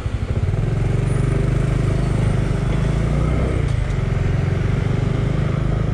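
A vehicle engine running close by: a loud, low, steady pulsing note that picks up slightly about half a second in and then holds.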